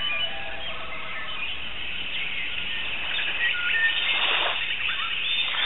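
Several birds chirping and whistling in short, overlapping calls, with a brief rush of noise about four seconds in.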